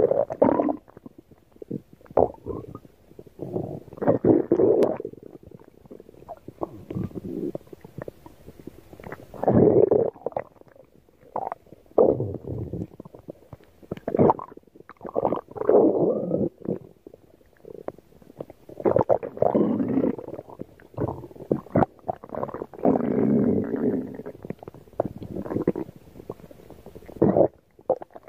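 Hungry stomach growling and gurgling in a string of irregular rumbles, each a second or two long, with short pauses between.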